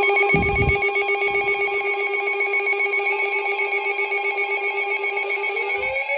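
Electronic alert tone for a severe thunderstorm warning: a buzzy pulsing tone held at one pitch, with a low thump about half a second in, and a second tone sliding upward near the end.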